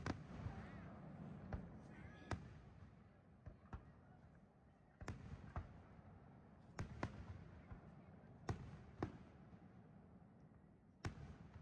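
Aerial firework shells bursting in the distance: about a dozen sharp bangs at irregular intervals, some in quick pairs, with a low rumble between them.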